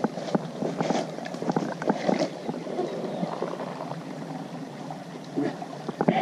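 Shallow creek water splashing and sloshing, with a run of quick knocks and splashes in the first couple of seconds that settles into steadier water noise, and a louder splash near the end.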